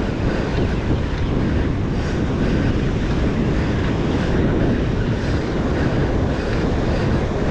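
Wind buffeting the microphone over breaking surf, with a faint regular whirr or click about twice a second from a fishing reel being cranked to bring in a hooked fish on a bent surf rod.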